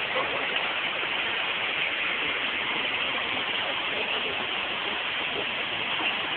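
Waterfall pouring into its pool: a steady, even rush of falling water.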